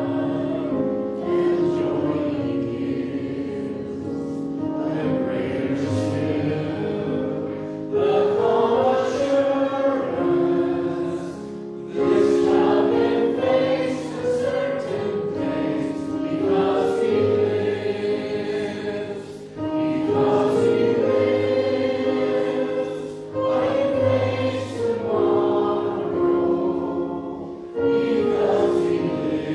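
A church choir singing a hymn in several voice parts, in sustained phrases of a few seconds each with short breaths between them.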